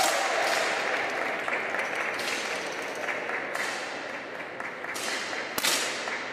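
About five 10 m air pistol shots going off one after another, each a sharp pop with a short ring of echo, over a background of applause that fades away.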